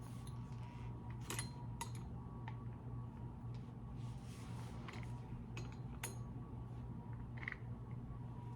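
A few faint, scattered metal clicks and clinks from handling a Ryobi oscillating multitool while its worn blade and clamping bolt are taken off, over a steady low hum.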